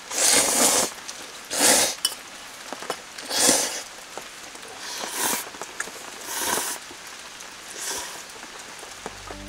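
Noodles slurped in short airy pulls, six times about a second and a half apart, over a steady patter of rain.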